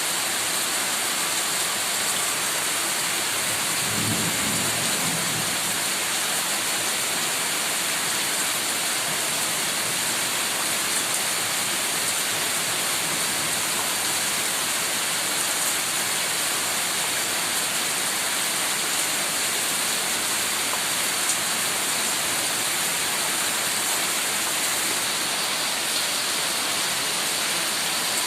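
Heavy rain falling steadily, with a brief low rumble of thunder about four seconds in.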